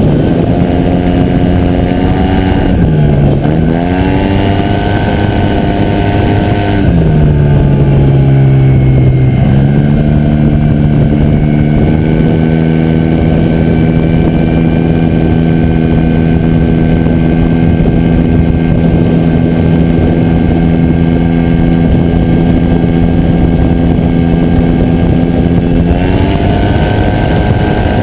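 Yamaha TMax 2019 parallel-twin engine through an Akrapovic exhaust, under way on the road. Engine pitch dips briefly about three seconds in, drops lower for a couple of seconds, then climbs back and holds steady, and rises again near the end.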